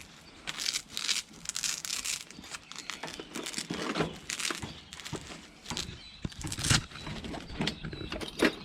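Fabric tool bag full of tools being handled and opened: irregular rustling and crinkling of the cloth, with a few sharp clicks and knocks.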